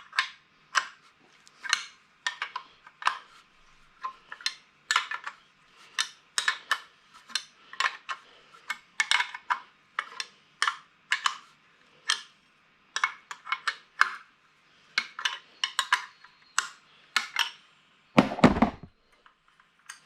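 Metal tools and fittings clinking in a rapid, irregular run of clicks as pressure gauges are threaded back into an air compressor's regulator manifold. A louder, heavier knock comes near the end.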